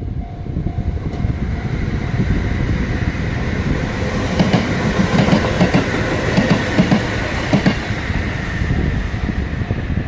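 A Sanyo Electric Railway train passing close by, its wheels clattering over the rail joints loudest in the middle few seconds, over a steady rumble and a thin high whine.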